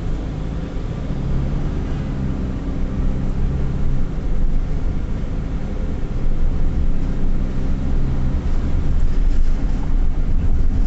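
Vehicle interior driving noise: a steady low rumble of engine and tyres on the road, heard from inside the cabin as it moves with traffic.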